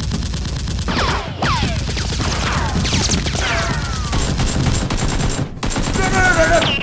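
Rapid automatic gunfire sound effects, shot after shot, laid over the action. Several falling whistles sound in the first half, and a high wavering cry starts near the end.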